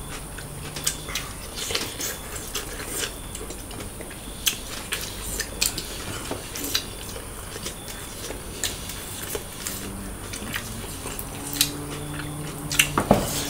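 Irregular light clicks and clinks of a meal at the table: fingers and food against ceramic plates, with small knocks of dishes and serving spoons. A few louder clicks come near the end.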